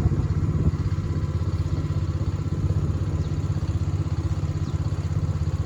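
A small engine running steadily at an even speed, a low throb.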